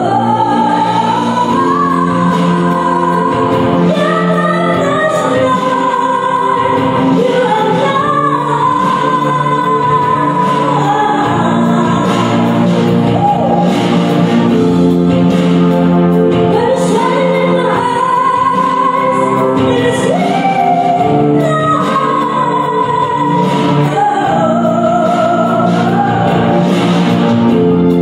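A woman singing into a microphone through a PA over instrumental accompaniment, holding long notes with a wavering vibrato.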